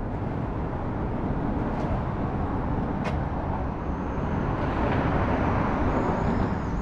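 Steady hiss and rumble of passing road traffic, with a faint tick about three seconds in.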